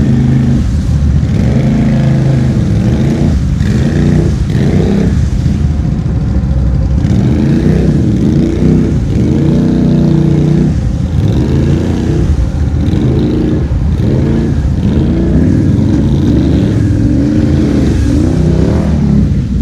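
ATV engines revving up and down repeatedly as the machines push through a muddy rut in tall grass.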